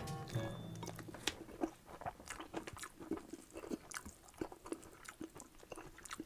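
Close-up chewing and wet mouth clicks of a person eating rice and Bicol Express. Background music fades out about half a second in.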